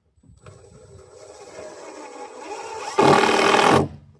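Power drill running as it works into the strapping and wood, speeding up gradually and then running hard for about a second before stopping.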